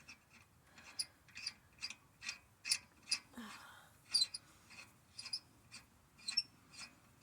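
Metal ratcheting clicks, about two or three a second, as a lug nut is turned onto a wheel stud during a tyre change.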